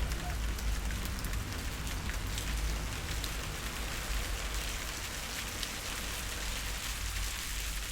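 Steady rain falling on a surface, an even hiss with scattered drop ticks over a low rumble.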